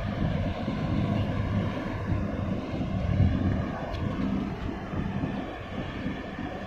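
Low, steady diesel drone from the small harbour workboats and the departing container ship, wavering in strength, with wind buffeting the microphone.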